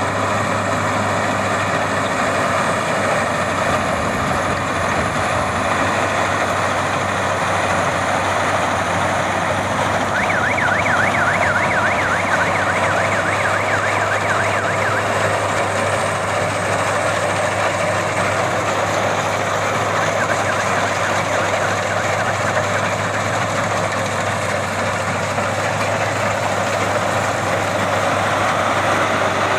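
Okey Maxxi Bimo 102 combine harvester running steadily, its engine and threshing machinery making a loud, even mechanical noise. Between about 10 and 16 seconds in, a fast-warbling, siren-like tone rises and falls over it.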